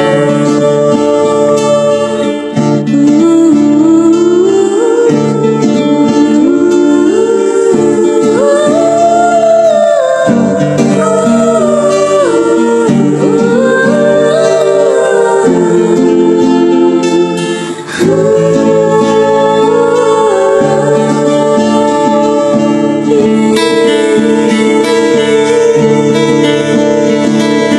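Romantic ringtone music: strummed acoustic guitar under a voice singing a slow, gliding melody. There is a brief break about two-thirds of the way through before the guitar carries on.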